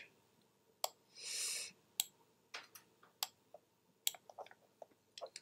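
Scattered computer mouse and keyboard clicks, coming more often near the end, with a short breathy hiss about a second in.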